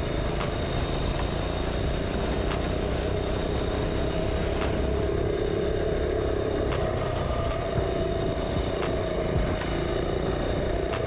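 Small single-cylinder four-stroke mini bike engine running steadily at cruising speed of around 30 mph, with wind rushing over the microphone.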